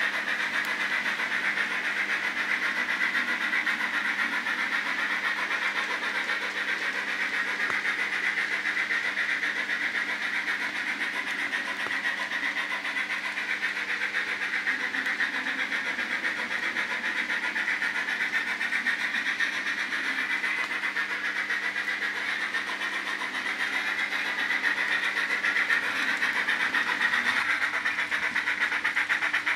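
HO scale model steam locomotive and passenger coaches running on the layout's track: a steady whirring and rolling rattle of the small motor and wheels on the rails, with a faint steady hum underneath.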